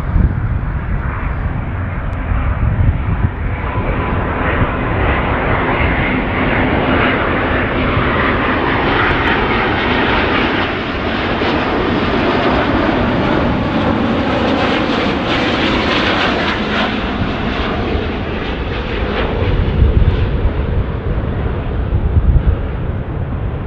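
Jet engines of an Airbus A350 airliner on landing approach with the gear down, a steady roar with a faint whine in it. It grows louder as the plane passes, is loudest about midway, then eases off.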